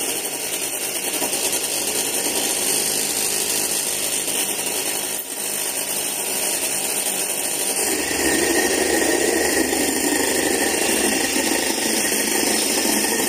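Electric hand mixer (Tefal Prep'Line) running steadily, its beaters whipping egg whites in a stainless steel bowl. It grows louder about eight seconds in.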